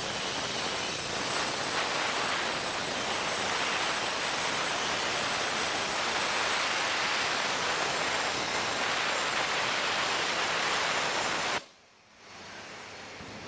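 Plasma cutting torch on a CNC table, powered by a Victor UltraCUT 400XT, cutting with a loud, even hiss and a thin high whistle. The arc shuts off abruptly about eleven and a half seconds in, leaving a much quieter steady hiss.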